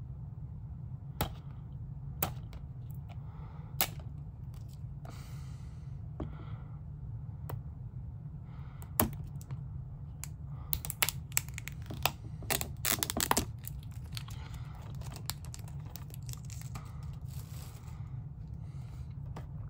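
Hands working a plastic Blu-ray case open, fingernails picking at its top edge: scattered sharp plastic clicks and taps. About eleven seconds in comes a denser run of clicks and crinkling that lasts a couple of seconds.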